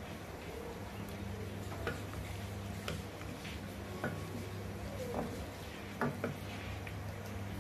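Wooden spatula stirring meat in a pot of soy-sauce liquid, knocking against the pot a few times, twice in quick succession about six seconds in, over a steady low hum.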